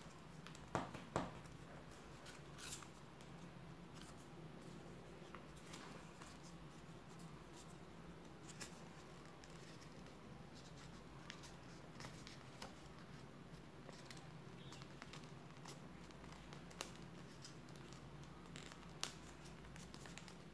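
Sheet of printer paper being folded and creased by hand: faint, irregular crinkling and rustling with a few sharper clicks, the loudest about a second in and near the end, over a low steady hum.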